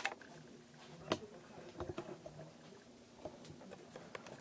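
Cardboard packaging being handled while a box is unpacked: faint rubbing and scraping with light taps, a sharp click at the start and another about a second in.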